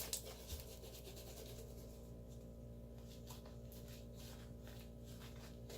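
Hands stretching and working slime: faint rubbing with scattered soft sticky clicks, over a steady low hum.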